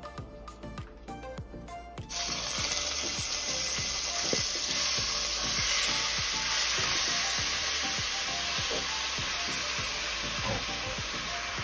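Skirt steak seasoned with sofrito frying in hot olive oil in a preheated pot. A loud, steady sizzle starts suddenly about two seconds in, as the meat hits the oil, over background music with a beat.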